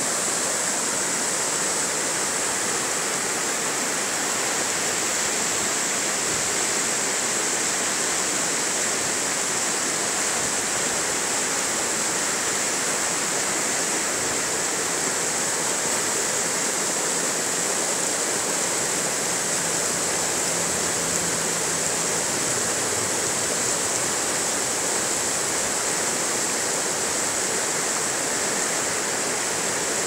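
Fast, shallow river running over rocks in white-water rapids: a steady, even rushing of water.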